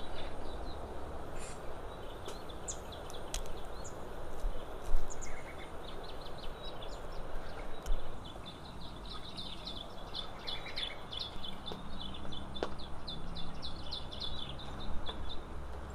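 Small birds chirping in quick repeated series of short high notes, over a steady outdoor background hiss. A couple of brief sharp knocks stand out, one about five seconds in and another near eight seconds.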